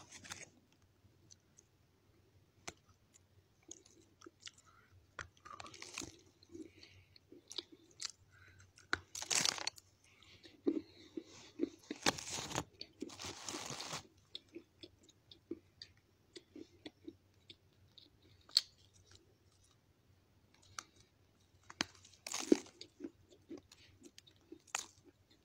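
A person chewing and crunching pieces of white clay shale stone: scattered soft crunches and mouth clicks, with louder bouts of crunching about nine seconds in, from about twelve to fourteen seconds, and again near twenty-two seconds.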